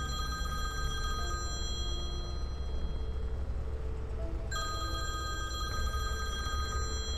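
Smartphone ringtone sounding for an incoming call: an electronic ring of several high tones that fades about two seconds in and starts again around four and a half seconds. Low, sustained background music plays underneath.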